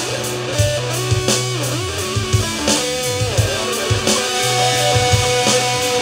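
Instrumental rock jam: a guitar plays lead lines with bent, sliding notes over sustained low bass notes and a drum kit.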